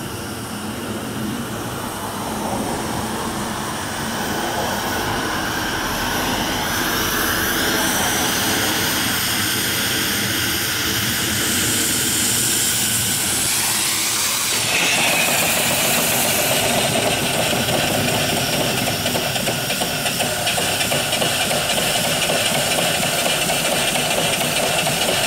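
Mill steam engine (3-inch bore, 4-inch stroke, with a flyball governor) running steadily on steam, with a hiss of steam that grows brighter partway through.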